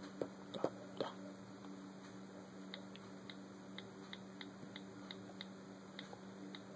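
Light clicks of an iPad's passcode keypad being tapped, one about every third to half second, over a steady low electrical hum. A few louder knocks of the device being handled come in the first second.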